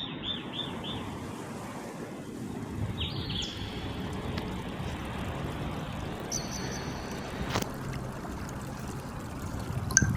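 Steady rush of running water, with a few short high chirps from birds: a quick run of four near the start, more about three seconds in, and a thin whistle around six to seven seconds in. A single sharp click about seven and a half seconds in.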